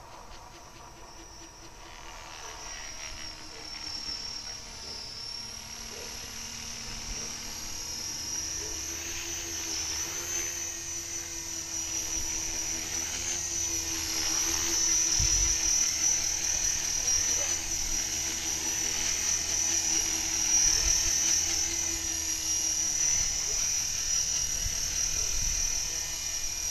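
Radio-controlled helicopter flying, its high-pitched motor and rotor whine growing steadily louder as it approaches, then hovering close.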